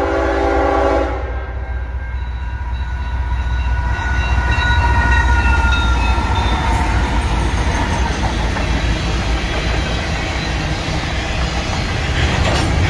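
Air horn of a Canadian National ET44AC diesel-electric locomotive sounding a multi-note chord that cuts off about a second in. Then the lead locomotives' engines and wheels pass close by with a rumble and a whine falling in pitch, followed by empty covered hopper cars rolling past with a clickety-clack of wheels on rail.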